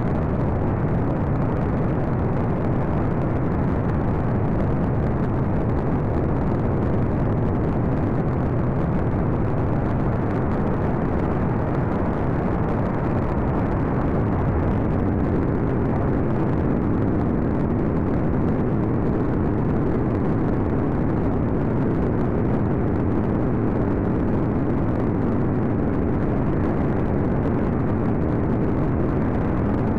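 Light aircraft in flight: a steady engine drone mixed with the rush of air, unchanging throughout.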